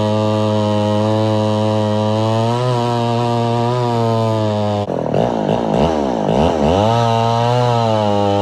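Chainsaw engine running at a steady speed, its pitch wavering slightly. About halfway through, the sound is warped for a couple of seconds by an audio effect, with sweeping pitches, before the steady running returns.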